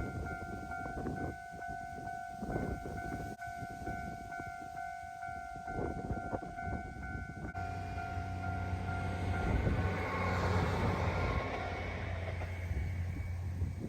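Level-crossing warning bell ringing steadily over a low, gusty rumble. A train passes about eight seconds in, loudest near ten seconds, and the bell stops shortly before the train noise fades.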